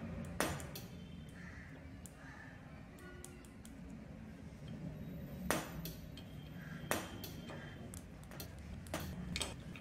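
A few separate sharp clicks and clinks of a small push-button switch and its wired leads being handled and tested, the loudest about five and a half seconds in.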